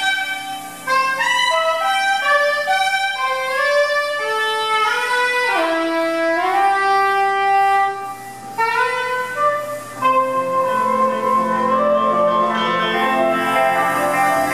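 Soprano saxophone playing a solo: quick runs of notes rising and falling, with a few held and sliding notes and a couple of short breaks.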